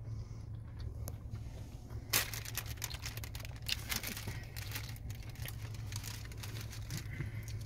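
Paper food wrappers and a paper bag being handled and crumpled, a dense crinkling that starts about two seconds in and runs to near the end, over a steady low hum.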